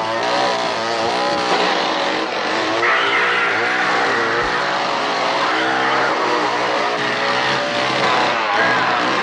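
Two-stroke chainsaw running loudly, its engine pitch wavering up and down as it is revved.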